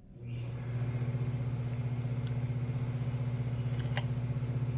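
A motor starts up and runs steadily with a low, pulsing hum. A couple of light clicks come near the end.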